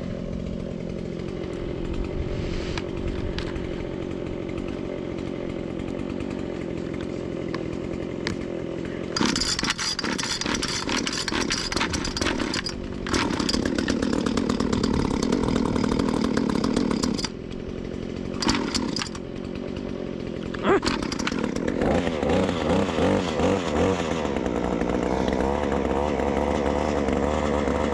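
ATV engine running as it is ridden, its speed rising and falling with the throttle: it gets louder about nine seconds in, eases off around seventeen seconds, then picks up again with an uneven, wavering pitch.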